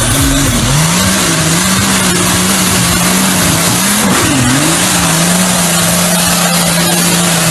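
Off-road 4x4's engine held at high revs, its wheels spinning, over a continuous loud rushing noise. The revs waver, dip briefly about four seconds in, then hold steady.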